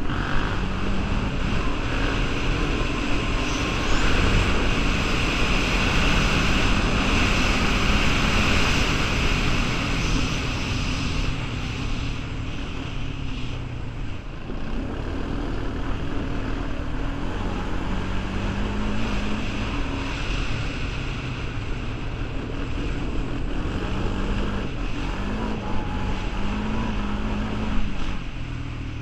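Honda 420 ATV's single-cylinder four-stroke engine running under way on a dirt trail, its pitch stepping up and down with the throttle, with wind buffeting the microphone.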